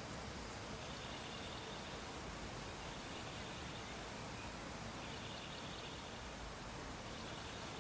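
Steady background hiss with faint high-pitched tones that come and go every second or two.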